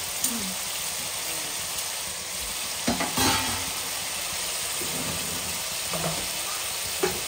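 Chicken pieces sizzling steadily as they fry in hot oil in a nonstick pan. A spatula stirring them adds a few knocks and scrapes, the loudest about three seconds in.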